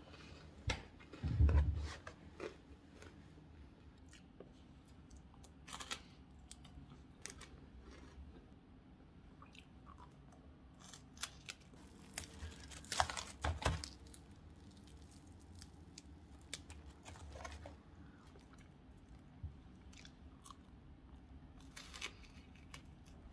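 Crunching and chewing of a crisp, fridge-chilled puffed-grain gangjeong bar, with scattered sharp crackles. About twelve seconds in there is a denser burst of crackling as a piece is broken off the slab.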